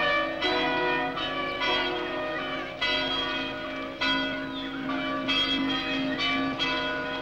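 Church bells ringing a peal: several bells struck one after another about every half second, each ringing on into the next.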